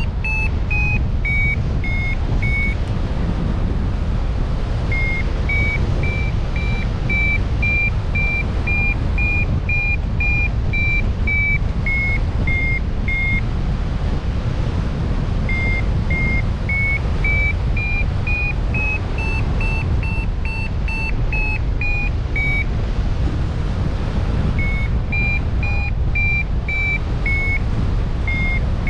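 A run of short beeping notes, about two a second, stepping up and down in pitch in phrases with short pauses, over a steady low rumble.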